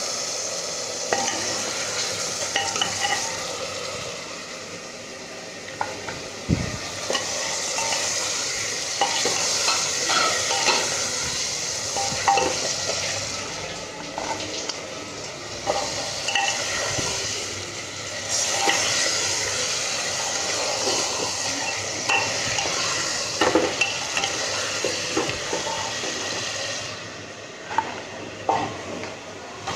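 Chicken pieces sizzling in hot oil and masala in a pot, with a steady hiss and scattered clinks and scrapes of a spoon stirring.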